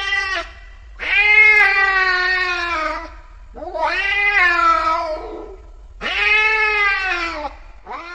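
Angry cat yowling in long, drawn-out wails of about two seconds each, one after another with short pauses between.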